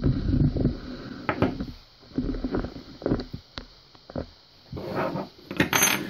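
Handling noise from a metal euro-profile lock cylinder being moved about and set down on wood: irregular knocks, clicks and rustles, with a sharp metallic clatter near the end.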